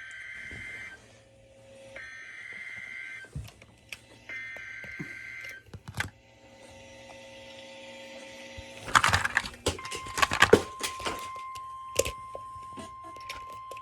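Emergency Alert System header data bursts: three short, buzzy electronic screeches about a second apart, the coded signal that opens an alert. After a pause come loud crackling clicks, and then a steady single-pitch warning alarm tone starts about ten seconds in.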